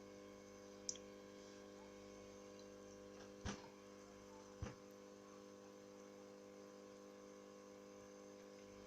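Near silence: a steady electrical hum, with three faint clicks about one, three and a half and four and a half seconds in.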